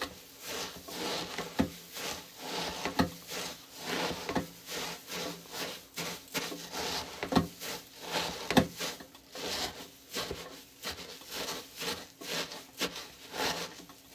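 Wooden spoon stirring Rice Krispies cereal into melted marshmallow in a stainless steel saucepan: the cereal rustles and crunches in repeated strokes, about one a second, with a few sharp knocks of the spoon against the pan.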